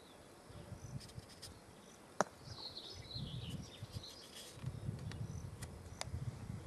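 Faint outdoor chirping of wildlife, with low uneven thuds underneath and a sharp click about two seconds in, and a smaller one near six seconds.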